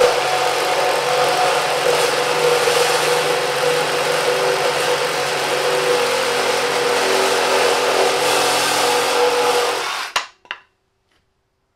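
Milwaukee M18 FUEL Sawzall 2821-20 cordless reciprocating saw running at full speed through a 4x6 wooden timber, a steady whine with the rasp of the blade in the wood. It stops about ten seconds in as the cut finishes, followed by a short knock.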